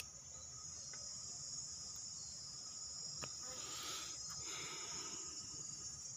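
Steady, high-pitched chorus of insects chirring. A faint click comes about three seconds in and a brief soft rustle around four seconds.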